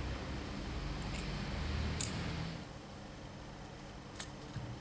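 Small metal pump parts clinking as the plunger seal housing of a Falch 500 bar pump is reassembled by hand: one sharp, briefly ringing clink about two seconds in, with a few lighter ticks before and after it.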